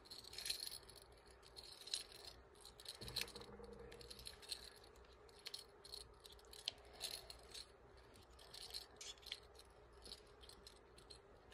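Faint, irregular clicking and light metallic rattling from a steel screw eye being twisted into a wooden popper lure, with a screwdriver wedged through the eye as a lever.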